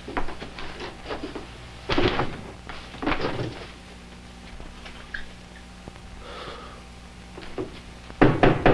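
Knocks and thuds of a wooden box and the things in it being handled, louder about two and three seconds in, over a steady low hum.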